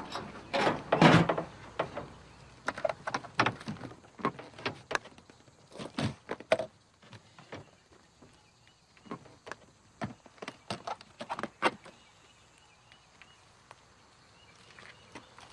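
Knocks and thumps of suitcases being handled on the wooden bed of an old open car and set down on gravel, as someone climbs out of the car. The sounds are loudest about a second in, come irregularly, and thin out after about twelve seconds.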